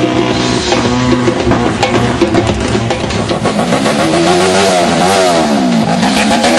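Music with held notes, then from about four seconds in a motorcycle engine revving through an oversized cone-shaped exhaust, its pitch rising and falling again and again.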